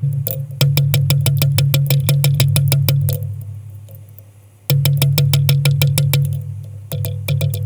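Background music: a fast, even ticking percussion over a low bass line, breaking off about three seconds in and starting again a second and a half later.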